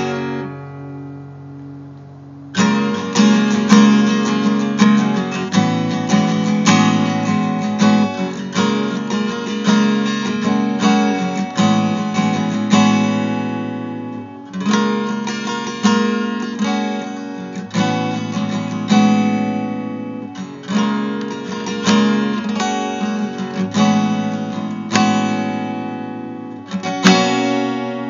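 Acoustic guitar music, strummed and picked: one chord rings out at the start, then steady playing begins about two and a half seconds in, with a few short breaks.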